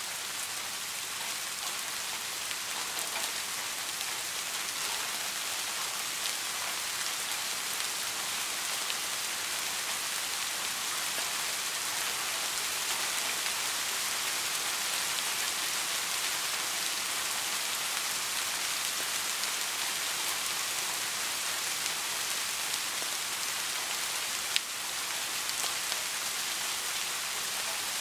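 Steady rain falling: an even hiss with faint scattered drop ticks, and one sharper single tap near the end.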